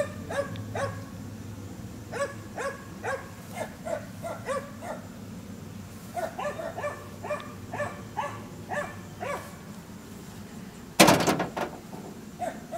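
A dog barking in several runs of quick barks, two to three a second. About eleven seconds in, a loud rattling knock cuts across it.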